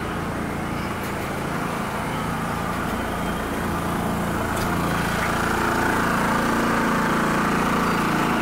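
An engine running steadily, growing louder from about halfway through.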